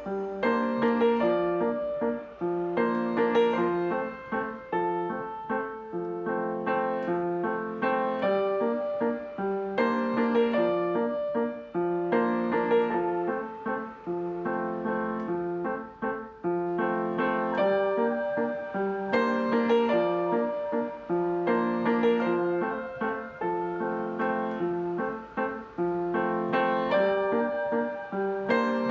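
Background music: piano playing notes and chords in a steady, repeating pattern.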